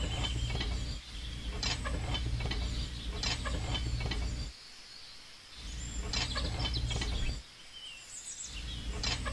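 Low, steady hum of a model tractor's small electric motor. It cuts out abruptly twice for about a second and then runs again, with birds chirping in the background.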